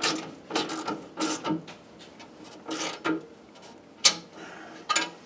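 An 11 mm wrench tightening the bolts of a John Deere snowblower drift cutter, in about half a dozen short clicking strokes with pauses between them.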